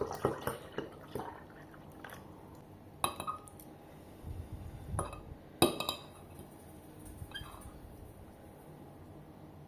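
Dishes and glassware clinking and knocking: a cluster of clinks in the first second, then single knocks about three, five and five and a half seconds in.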